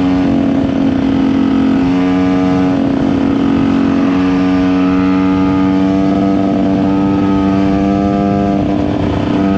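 KTM EXC 125 two-stroke single-cylinder engine running under riding load. Its pitch shifts a few times in the first three seconds, holds steady for several seconds, then changes again near the end, over wind and road noise.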